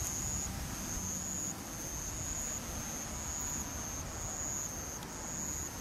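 High, thin insect trill, coming in pulses about half a second long with short gaps between them, over a low steady rumble.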